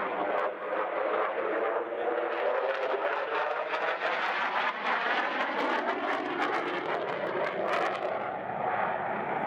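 Jet engine noise of a Belgian Air Force F-16 (Pratt & Whitney F100 turbofan) flying a display manoeuvre: a steady, loud rushing roar with a rippling tone that rises slightly in pitch over the last few seconds.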